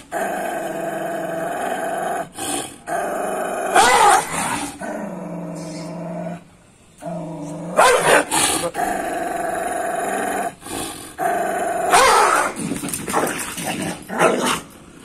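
Pit bull vocalising: long held growling notes broken by a few short, sharp barks.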